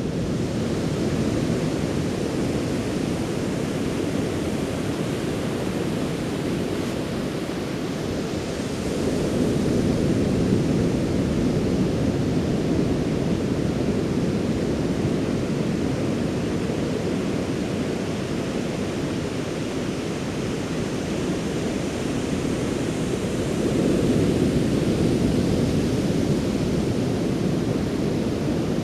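Ocean surf washing onto the shore as a steady rushing noise, swelling louder twice as bigger waves come in.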